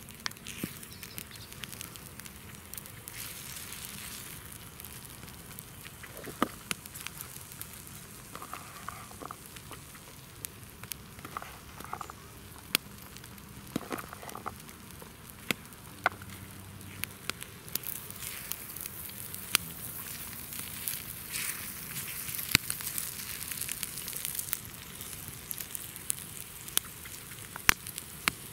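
Small wood fire crackling in a Bushbox pocket stove, with frequent sharp, irregular pops.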